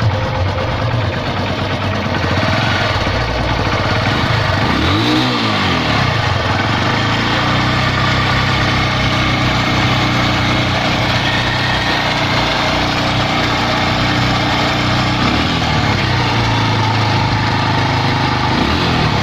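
Honda CB110's single-cylinder four-stroke engine idling, blipped briefly about five seconds in and again near the end. It has a noisy timing chain, which the owner suspects is worn, its roller perhaps gone so that it runs steel on steel.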